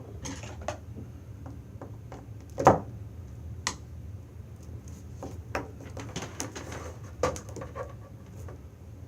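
Small metal clicks and taps of a BNC connector being handled and worked onto Cat5 wire, scattered irregularly and loudest about two and a half seconds in, over a steady low hum.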